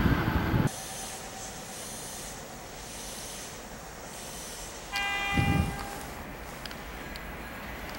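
The tail end of a passing train's rumble cuts off suddenly under a second in, leaving a steady faint hiss; about five seconds in, a train's electric horn gives one short toot, under a second long.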